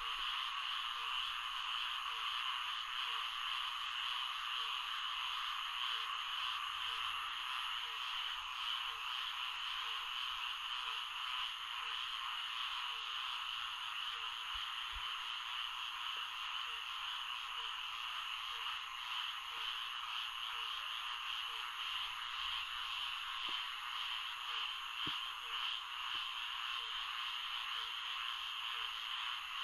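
Swamp frog chorus: a dense, steady trilling of many frogs, with a lower short call repeating about once a second.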